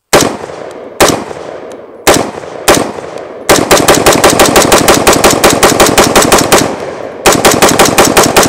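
Huldra MK IV AR-15 rifle firing 5.56 mm brass-cased rounds semi-automatically: four spaced shots, then a rapid string at about five shots a second, a brief pause near the end, and another rapid string. The rifle cycles every round without a stoppage.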